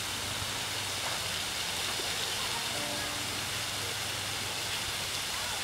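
Steady hissing rush of a large pond fountain's spray falling back onto the water.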